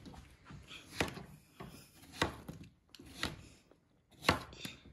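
Knife cutting a honeydew melon on a cutting board: a series of sharp chopping knocks, the four loudest about a second apart.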